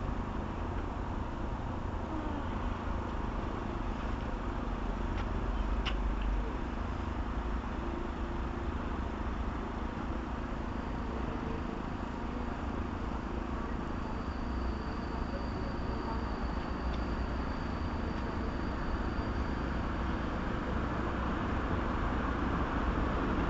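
Steady rumble of an approaching train hauled by an EP07 electric locomotive, growing louder near the end as it nears the platform. A faint high whine sounds for several seconds in the middle.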